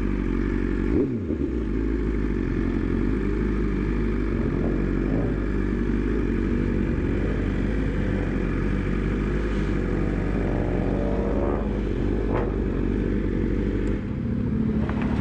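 2021 BMW S1000RR inline-four engine running under way, heard from the rider's chin-mounted camera with wind rush. The engine pitch briefly drops about a second in, and the note changes near the end.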